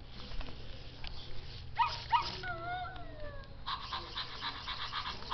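Zoomer robot puppy toy playing recorded dog sounds through its speaker: two quick yips about two seconds in, then a wavering, falling whimper. A fast, evenly pulsing sound starts after that and keeps going.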